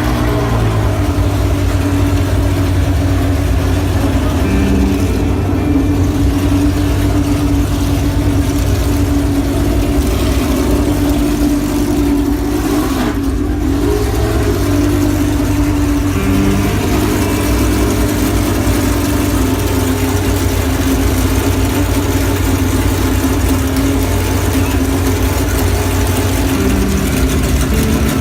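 A car engine running steadily at a near-constant speed, its pitch shifting slightly about halfway through and again near the end.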